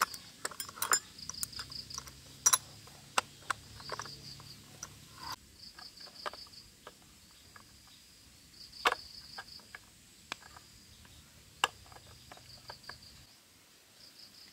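Crickets chirping in short pulsed trills, repeated throughout, over scattered sharp clicks and knocks; the loudest knocks come about two and a half and nine seconds in.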